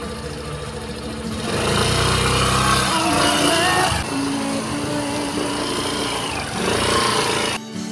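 Motor scooter engine running and pulling away, loudest from about one and a half to three seconds in, with background music playing.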